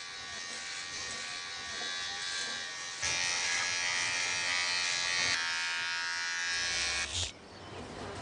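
A small electric motor buzzing steadily, louder from about three seconds in, then cutting off about a second before the end.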